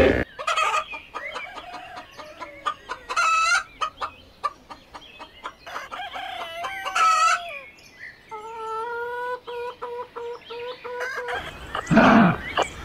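Chickens clucking and calling in many short, varied notes, then a steady run of short, even clucks for about three seconds. Near the end a loud, deep animal roar cuts in.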